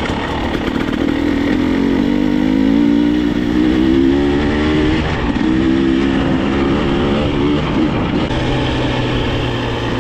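Off-road vehicle engine pulling away and revving up, easing off briefly about halfway through, revving up again, then settling to a steady low running note about eight seconds in.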